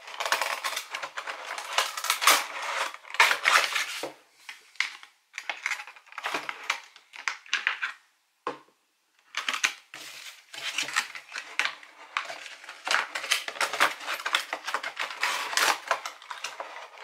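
Cardboard box and plastic packaging of a Funko Pop vinyl figure being handled and opened: irregular crinkling, rustling and clicking, with a short pause a little past the middle.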